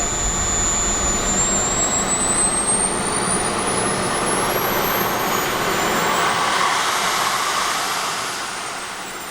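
Twin JetsMunt Merlin model turbine engines of a large RC English Electric Lightning jet running, a steady rushing roar with a high turbine whine that climbs in pitch over several seconds and then holds. The sound grows quieter near the end.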